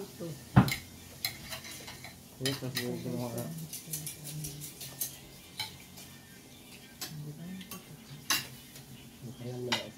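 Spoons and forks clinking and scraping on ceramic plates during a meal, in scattered sharp clinks, the loudest about half a second in.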